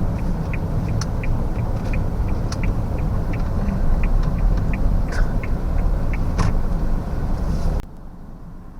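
Car interior with low engine and road rumble and a turn-signal indicator ticking steadily about three times a second. The sound drops off abruptly near the end.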